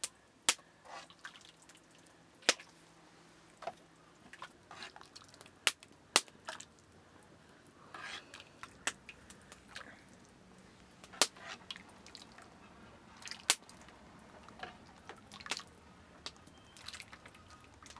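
A metal ladle clinks sharply against aluminium pots about a dozen times at irregular moments as hot milky liquid is scooped and poured into a metal bowl, with the liquid splashing and dripping.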